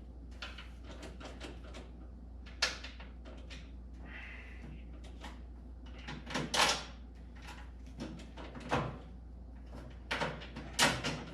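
Scattered knocks and clanks of metal cart parts and bolts being handled during assembly, with a short scraping rattle about four seconds in and louder clatters near the middle and the end.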